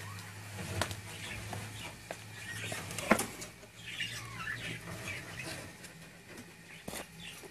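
A budgerigar fluttering and scrabbling in a wire cage, with sharp knocks and rattles against the cage wire and a few short chirps about four to five seconds in.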